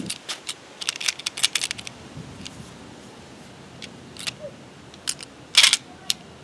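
Inert .40 dummy cartridges being thumbed out of a Glock magazine, clicking off the feed lips and clinking against each other in the palm: a quick run of small metallic clicks between about one and two seconds in, then a few single clicks and one louder clack about five and a half seconds in.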